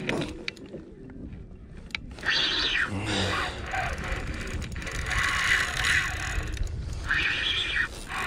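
Spinning fishing reel whirring in three bursts of about half a second to a second and a half each, under load from a heavy hooked bonito, over a low steady rumble.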